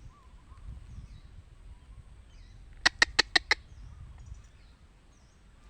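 A bird calling: a quick run of five sharp, loud notes about three seconds in, over faint chirping from other birds.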